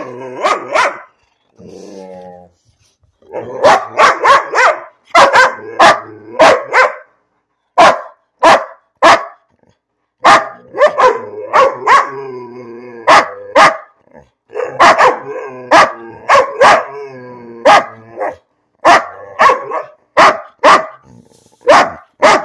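A big dog barking repeatedly at close range, in quick runs of short, sharp barks, mixed with longer drawn-out, wavering vocalizations, a 'talking' sort of grumble and moan.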